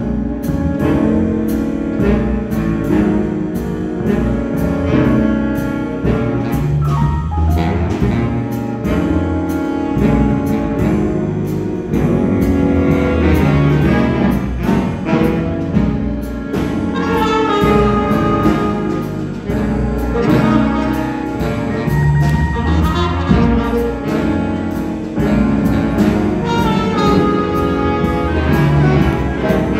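School jazz band playing a trombone feature: brass over drum kit and bass, with a cymbal keeping a steady beat. The music starts suddenly right at the beginning.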